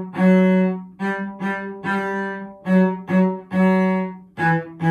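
Solo cello bowed in a short-short-long rhythm: pairs of short notes each followed by a held note, stepping F sharp, G, F sharp, E, with the last group lower.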